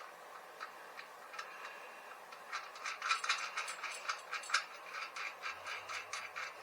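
Ratchet wrench clicking while tightening the bolts of a bicycle engine mount: a few scattered clicks, then a quick run of about four clicks a second for several seconds.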